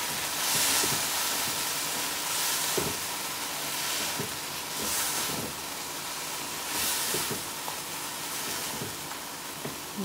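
Mashed vegetable mixture sizzling as it fries in a nonstick wok, with the scrape of a silicone spatula stirring it through in strokes about every two seconds.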